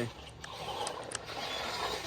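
Electric RC monster truck doing donuts on dirt: faint motor and tyre noise with a few sharp ticks.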